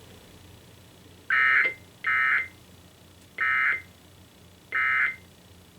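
Emergency Alert System end-of-message data bursts: four short, harsh digital warbling tone bursts, the last three evenly spaced about a second apart. They mark the close of a Required Weekly Test.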